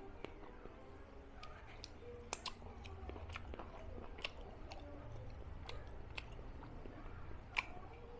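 A person chewing and biting food close to the microphone, with irregular wet mouth clicks and smacks. A sharper single click comes near the end.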